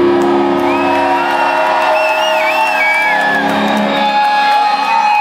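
Rock band playing live, heard from the crowd through a phone's microphone: held, ringing guitar chords over the drums, with audience shouts and whoops. A wavering high tone rides over the music in the middle, and the lowest notes drop out about four seconds in.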